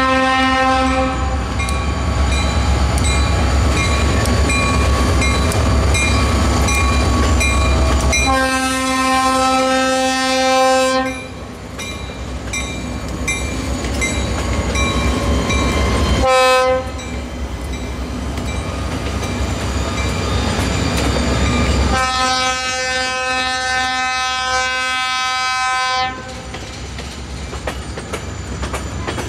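Freight train's diesel locomotives rolling through a grade crossing, the lead unit sounding its chime horn in the crossing pattern: long blasts, a short toot about halfway through, then a final long blast. Under the horn the engines rumble heavily as they pass, and in the last seconds the tank cars roll by with wheels clacking over the rail joints.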